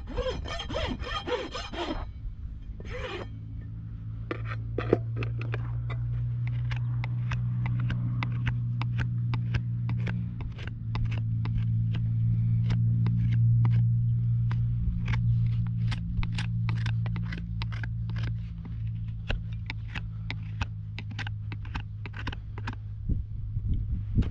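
A farrier's rasp scraping across a horse's overgrown hoof for a couple of strokes at the start, then a hoof knife paring the hoof sole in many short, sharp cuts, a few a second. A steady low hum runs underneath.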